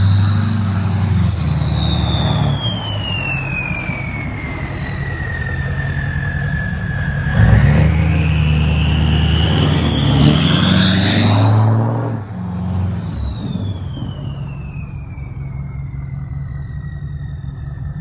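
Ford 6.4 Powerstroke V8 diesel with an H&S single-turbo kit (S366 turbo) working at low throttle under plowing load. The turbo whistle slides down in pitch over the first seven seconds, climbs back up to a high peak as the engine pulls harder about eleven seconds in, then slides down again, over the diesel's steady low rumble.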